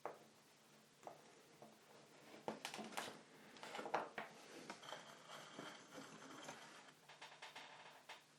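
Faint clicks, taps and rustling of small tools and a circuit board being handled on a workbench, busiest a few seconds in.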